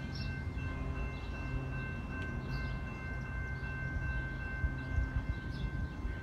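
Distant locomotive horn of an approaching BNSF intermodal train holding a long, steady chord over a low rumble from the train.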